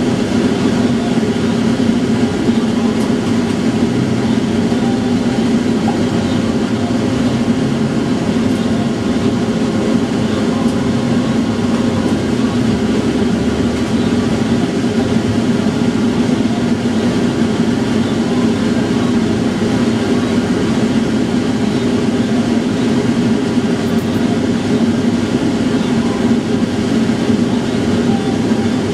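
Steady hum and rumble of a tram heard from the driver's cab while the tram stands and inches forward at low speed.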